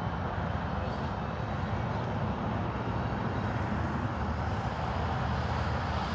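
Steady low rumble of a distant vehicle engine, slowly growing louder.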